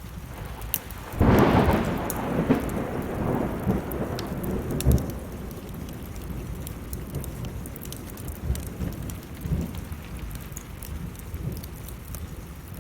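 A thunderclap about a second in, rumbling on for several seconds and dying away, over steady rain and the sharp crackle of burning wood in a fireplace.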